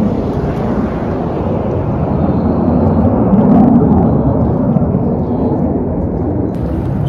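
Wind rumbling on a phone microphone, an uneven low rumble that swells a little around the middle.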